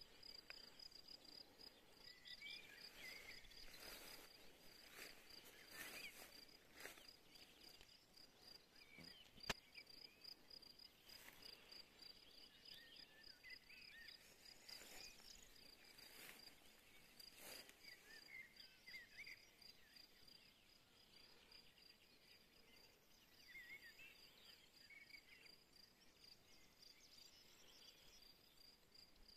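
Faint, steady, high-pitched insect trill of rapid even pulses in a summer meadow, with short chirping calls now and then and soft rustles. One sharp click about a third of the way in.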